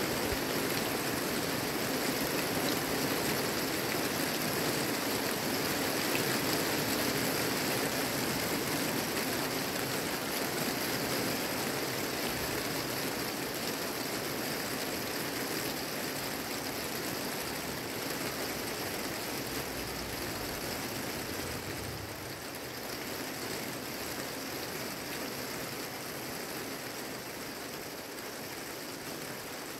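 Steady rain falling on a garden and trees, a constant hiss that eases slightly toward the end.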